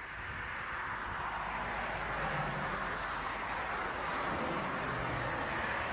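Boeing 787 airliner's jet engines heard as it rolls along the runway: a steady rushing noise that grows louder over the first two seconds, then holds.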